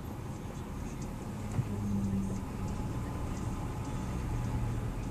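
Ford F350's 6.4-litre Power Stroke V8 diesel running, heard from inside the cab as a steady low drone. A click about a second and a half in is followed by a stronger, louder engine note.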